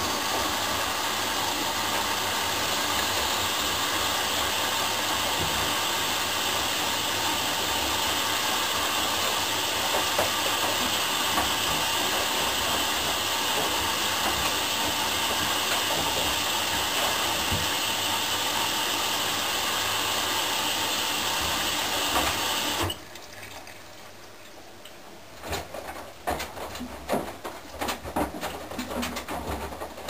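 Candy GO4 1274 LH washing machine taking in water: a steady rushing hiss of water filling through the inlet, starting suddenly and cutting off after about 23 seconds. Then the drum is heard turning, with soft sloshing of wet laundry and light clicks.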